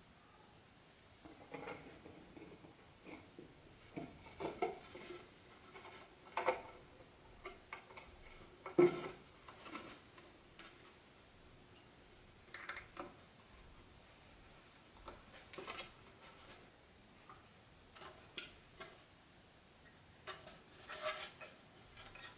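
Wooden dollhouse kit parts being handled and fitted together: irregular knocks, clicks and clatter, the loudest knock about nine seconds in.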